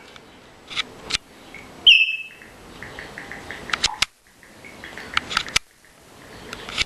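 African grey parrot giving one short, high whistle about two seconds in, among scattered sharp clicks.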